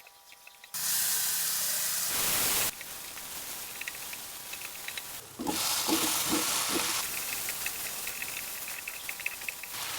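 Food sizzling in hot oil in a pan: a loud burst of sizzling about a second in, settling into a steady crackling fry, with a second loud surge and a few low knocks around the middle.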